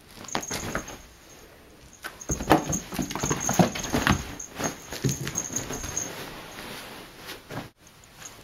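Futon bedding rustling, with irregular soft thumps and scuffs as a cat scrambles over it. It breaks off abruptly near the end.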